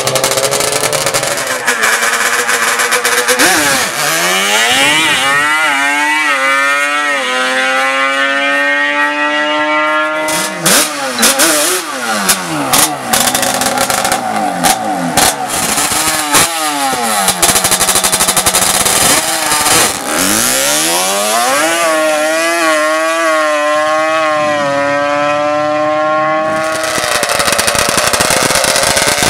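Racing engines at full throttle, climbing steeply in pitch, dropping back briefly at each gear change and climbing again, in two long runs. Between the runs come scattered sharp pops.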